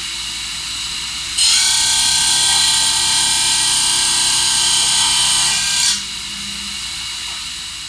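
UTMA P20 CNC profile grinder rough-grinding a steel knife: the grinding wheel runs steadily, and about a second and a half in the grinding grows much louder and harsher as the wheel cuts. It drops back to the steadier running sound about six seconds in.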